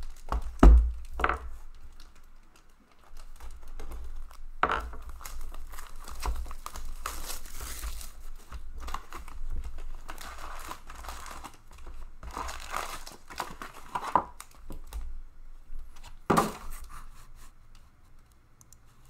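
Plastic wrap crinkling and foil card packs rustling as an Upper Deck Series 2 hockey card box is unwrapped and opened and its packs are pulled out and stacked. There is a low thump under a second in and a couple of sharp clacks. The handling noise fades near the end.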